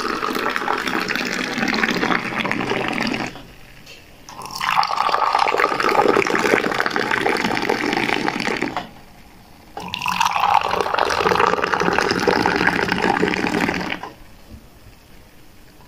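Tea poured from a teapot into small glasses on a metal tray, in three separate pours of about three to four seconds each with short pauses between. The stream splashes into each glass and raises a foam.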